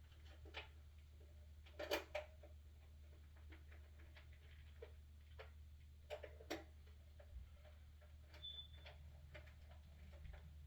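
Near silence over a steady low hum, broken by a few scattered light clicks and taps, the sharpest about two seconds in and a close pair about six seconds in.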